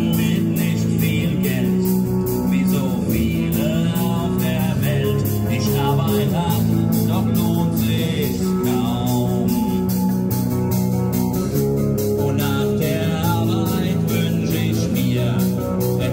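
Live band playing a song with singing, guitar and a steady beat.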